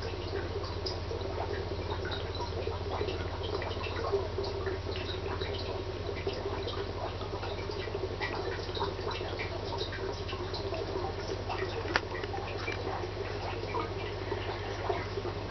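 Aquarium running: a steady low hum under constant trickling, crackling water and bubble sounds, with one sharper click about twelve seconds in.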